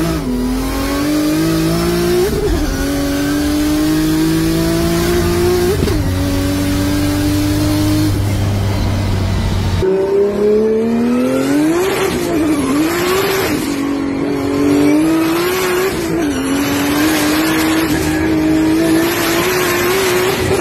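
Turbocharged Toyota 2JZ straight-six in a BMW E30 pulling hard through the gears, heard from inside the cabin: the engine note climbs steadily in each gear and drops back at each upshift, twice in the first half. About ten seconds in, another hard pull begins, with further upshifts.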